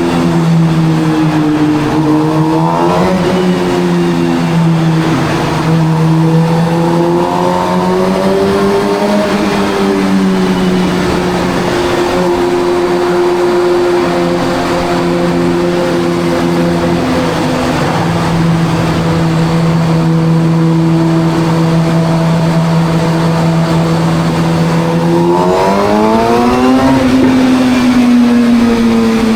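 Suzuki GSX-R750 inline-four engine running at steady cruising revs inside a road tunnel. The revs lift briefly about three seconds in, swell gently around eight seconds, and climb sharply near the end before easing off.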